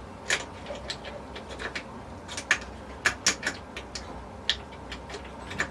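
Irregular sharp metal clicks and knocks from a freshly oiled overdrive part being slid out and in of its bore by hand.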